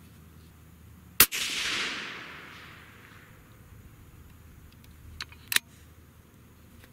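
A single shot from a suppressed Savage 110 bolt-action rifle in .308 Winchester, about a second in. It fires a handloaded 110-grain Sierra Varminter at about 3,250 ft/s. The sharp report is followed by a tail that dies away over about two seconds, and two faint clicks come a few seconds later.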